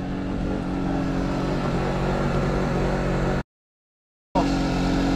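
A small engine on a fishing boat running steadily with an even, low hum. About a second of dead silence cuts in just past the middle.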